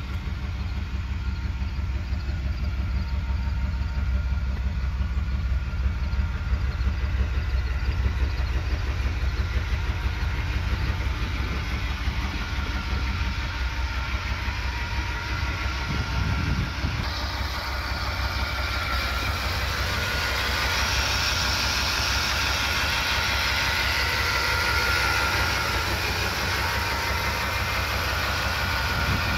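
1994 Dodge Ram 2500's V8 engine idling steadily. A low, pulsing exhaust rumble is strongest in the first half; a brighter, higher running sound comes up over the second half.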